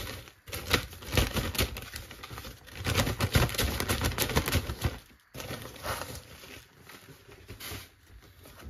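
Plastic bags crinkling and coarse salt being poured into a zip-lock bag to bury a pork tenderloin for salt-curing: a dense run of quick crinkles and gritty rustling, busiest in the first five seconds, then sparser and quieter.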